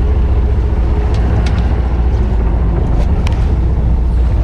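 Steady low rumble of the fishing boat's engine running at idle, with a few faint clicks about a second in and again about three seconds in.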